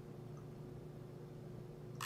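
Faint, steady low hum of background room tone, with no distinct events.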